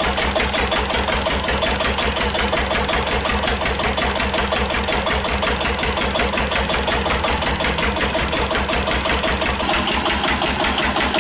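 1941 Witte single-cylinder diesel engine of a generator plant running steadily, with a rapid, even train of exhaust beats. Each firing stroke gives a sharp report from its open vertical exhaust stack.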